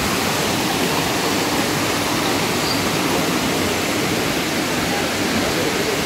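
Steady rushing of water cascading over boulders in a rocky stream, an even unbroken roar at constant strength.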